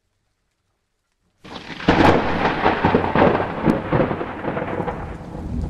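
Silence, then about a second and a half in a thunderclap breaks over rain, crackling at first and then slowly fading into a rolling rumble.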